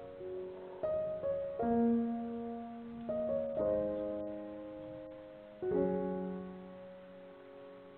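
Slow background piano music: a handful of notes and chords struck a few seconds apart, each left to ring out and fade.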